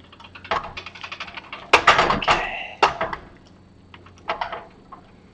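Steel parts of a shop-made machine skate clunking and knocking as a long pry bar levers its arm round to line up the bolt holes. A run of light clicks is followed by a loud knock and rattle nearly two seconds in, then a few smaller knocks.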